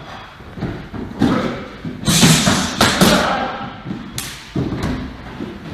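Several irregular, dull thuds of two MMA fighters clinching and striking each other, with bodies and bare feet landing on the padded mat.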